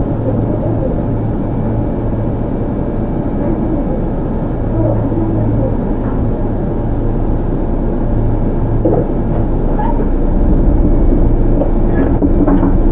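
Running sound inside a Sotetsu 8000 series electric train with Hitachi GTO-VVVF traction equipment: a steady rumble of motors and wheels on rail at speed, with faint inverter tones, growing a little louder in the second half.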